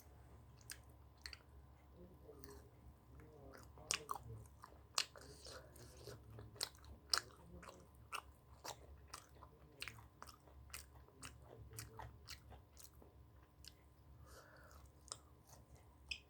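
A person chewing food close to the microphone, with irregular wet clicks and crunchy bites that are sharpest about four to seven seconds in.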